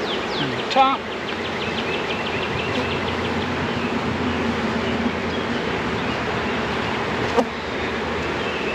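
Honey bees from an opened package buzzing around the hive in a steady hum, with a run of rapid high ticks in the first few seconds and a sharp click about seven seconds in.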